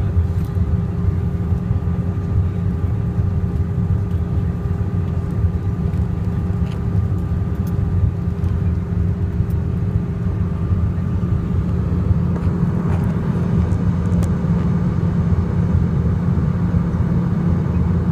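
Steady drone of a Boeing airliner's passenger cabin: engine and air-system noise, heavy in the low end with a faint steady hum above it.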